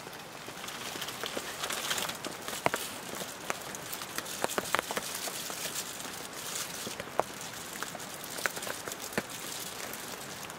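Wood fire crackling in a small Winnerwell wood stove, with scattered sharp pops over a steady hiss. Plastic crinkles as food is handled from a plastic bag.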